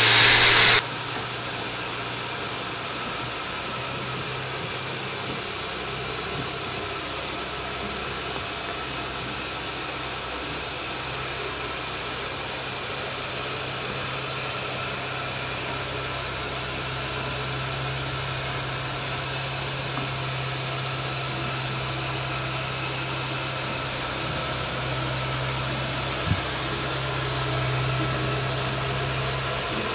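Steam hissing steadily from a Somerset & Dorset 7F 2-8-0 steam locomotive standing on a turntable, over a low steady hum. A louder hiss cuts off abruptly under a second in.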